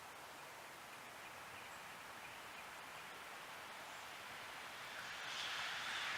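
Wind blowing through a heavy snowstorm, a steady hiss that swells louder about five seconds in as a gust comes up.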